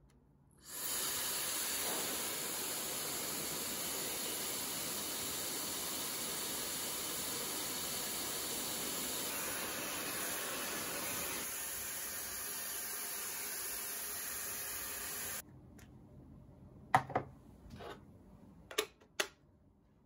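Dreame Hair Glory hair dryer switched on about a second in, blowing a steady rush of air while drying hair, then cut off suddenly about fifteen seconds in. A few sharp knocks follow near the end.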